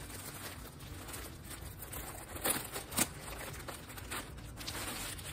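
Clear plastic bag crinkling and rustling as hands work it open, with two sharper crackles a little past the middle.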